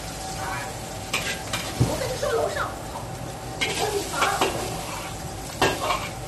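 Food sizzling in a wok over a high-flame range as a metal ladle stirs and scrapes it, with a few sharp clanks of ladle on wok, and a steady hum underneath.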